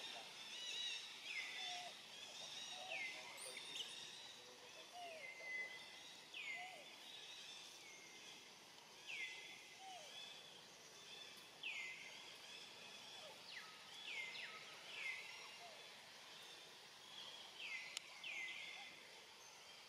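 Quiet forest ambience with a bird repeating a short, high call that slides downward in pitch, about once every one to two seconds, with fainter, lower calls in the first half.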